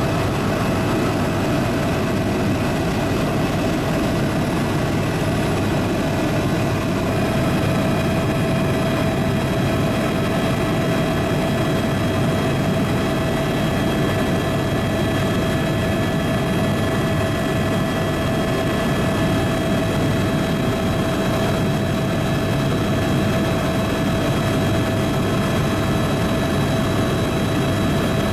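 Helicopter engine and rotor running steadily in cruise flight: a constant drone with a steady whine over it.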